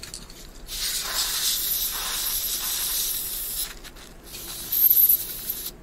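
Aerosol spray can with a straw nozzle hissing as it sprays into a motherboard CPU socket to clean it: one long spray of about three seconds, then a shorter, higher-pitched spray near the end.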